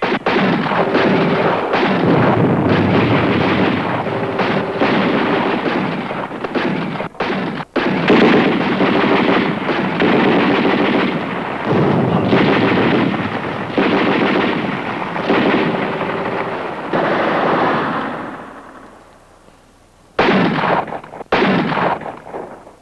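Heavy automatic gunfire, many weapons firing in sustained overlapping bursts, dying away about eighteen seconds in, then two short bursts near the end.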